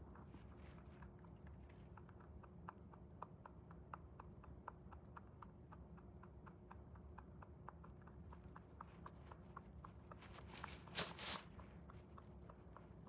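Netherland dwarf rabbit chewing food, a steady run of small crisp crunches about four a second. Near the end a louder rustling burst lasts about a second.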